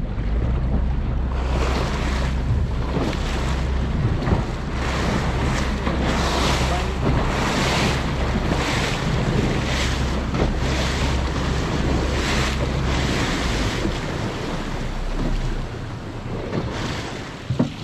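Wind buffeting the microphone on a boat at sea, with waves and water washing against the hull; a low rumble under it eases off near the end.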